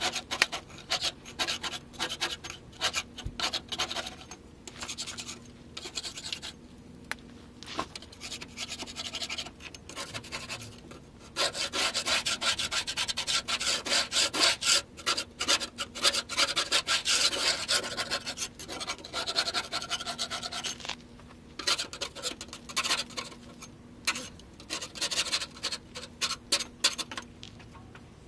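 Hand scraper rasping rust and old coating off the underside of a box truck in quick repeated strokes. It comes in bursts with short pauses, with a long unbroken stretch of scraping in the middle.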